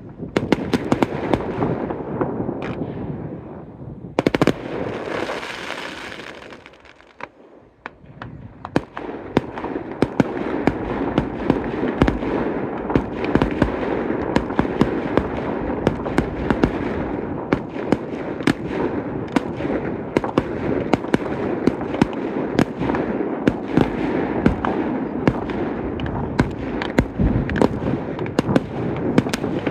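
Fireworks display: rapid bangs and crackling pops, with a sharp bang about four seconds in and a short lull about seven seconds in, then a dense continuous barrage of pops like rapid gunfire.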